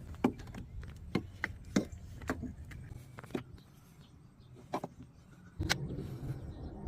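Irregular sharp clicks and knocks, like parts and tools being handled during ignition work on a car. A low steady hum comes in suddenly about two-thirds of the way through.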